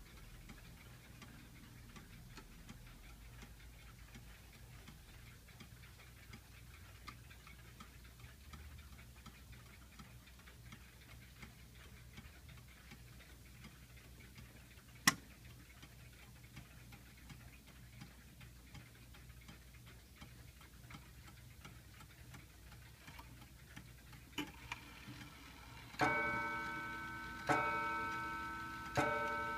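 Seth Thomas mantel clock ticking steadily, with one sharp click about halfway through. Near the end it begins striking four o'clock: three ringing strikes about a second and a half apart, each dying away slowly.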